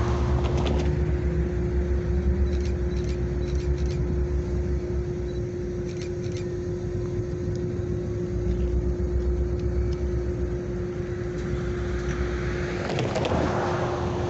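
Idling diesel locomotives giving a steady low rumble and hum, with a few light clicks in the middle. A road vehicle passes at the start and another near the end.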